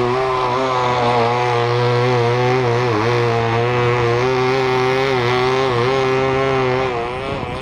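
KMD-2.5 model diesel engine on a free-flight model airplane running flat out, a steady high buzz with a couple of brief dips in pitch. About seven seconds in it drops in level as the plane is thrown and flies off.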